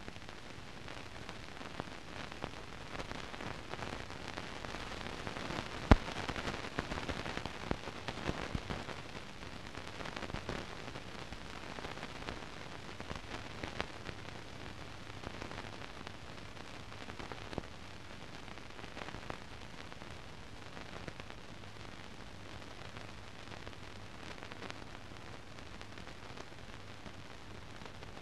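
Steady hiss and crackle from the transfer of a silent film, with scattered clicks and one sharp pop about six seconds in. The crackle is busiest for a few seconds after the pop.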